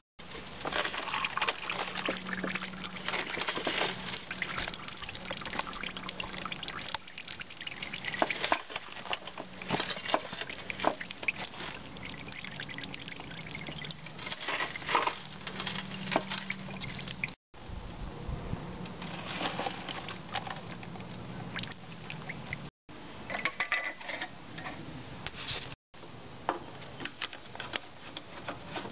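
Used engine oil pouring in a thin stream from a tipped lawn mower's oil filler into a plastic drain pan, a steady trickle with small patters and clicks.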